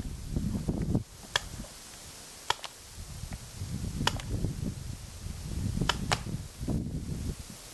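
Paintball markers firing: five sharp pops at irregular spacing, the last two close together, over a low rumble.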